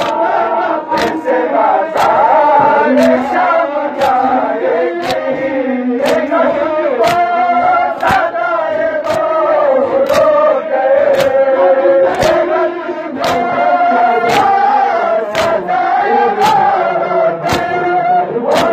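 A crowd of men chanting a mourning lament (noha) in unison while beating their chests in time, a sharp slap about twice a second (matam).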